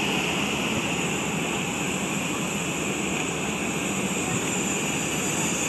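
Jet aircraft engine noise: a steady, even rush with a high-pitched edge.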